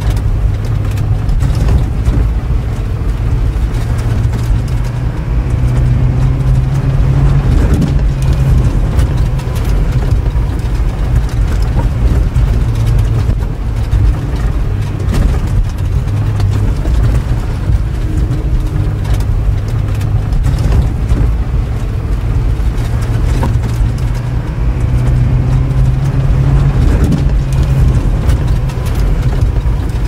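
Hemi V8 engine sound effect for a scale RC truck, running at a steady deep idle. Every few seconds its pitch rises a little and then settles back.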